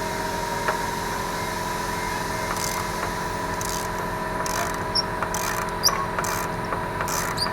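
Ratchet wrench clicking in short strokes, roughly every half second from about two and a half seconds in, while spark plugs are being taken out, over a steady machine hum.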